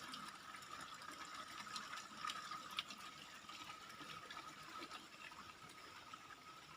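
Faint, steady rush of water from the waterfall, with a thin steady high tone over it.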